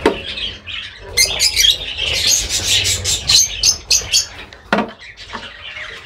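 Lovebirds in a breeding colony squawking and chirping: a rapid run of short, high-pitched calls, with a single knock about three-quarters of the way through.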